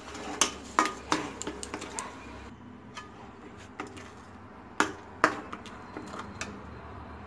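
Steel spatula scraping and knocking against a metal kadai while stirring thick, near-set gram flour batter: a quick run of scrapes and clicks in the first two seconds, then a few sparser knocks. The stirring is kept up without pause so the batter does not stick to the bottom of the pan.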